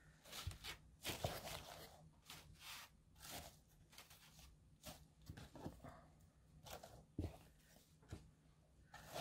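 Faint, intermittent rustling of crinkle-cut paper shred in a cardboard box, with light taps as small items such as a candle, a glass oil bottle and incense sticks are set down in it.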